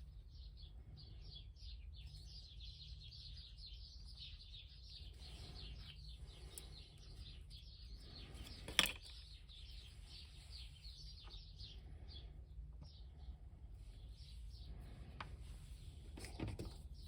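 Small birds chirping, many quick high chirps in a running stream, with a single sharp click about nine seconds in.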